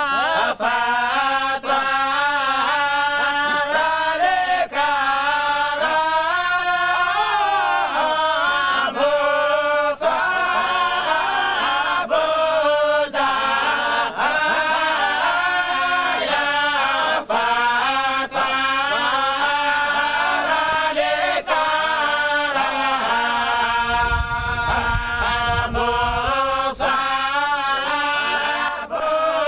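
A group of men chanting together in unison without instruments: a Sufi devotional chant of the Shadhuli Yashrutiya order. A low rumble runs under the voices for a few seconds near the end.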